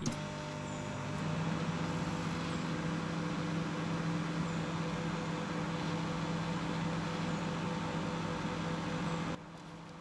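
Russell Hobbs microwave oven running from a power inverter: a steady electrical hum with a low tone, growing louder about a second in and cutting off abruptly near the end.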